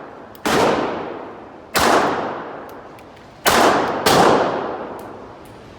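Four pistol shots, each with a long echoing tail; the last two come close together.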